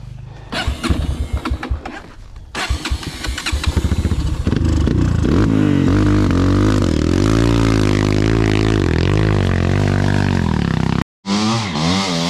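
Dirt bike engine revving, rising and falling in pitch as the throttle is worked, after a couple of seconds of clattering knocks. Near the end the sound cuts out briefly, then the engine is heard again at a higher, wavering pitch.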